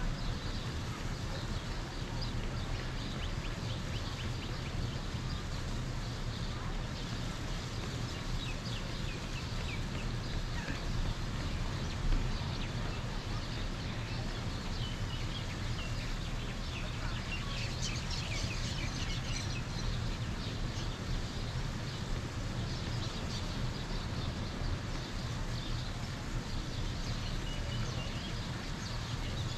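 Many small birds chirping and calling over a steady low rumble of outdoor background noise, the calls busiest a little past halfway. One low thump about twelve seconds in.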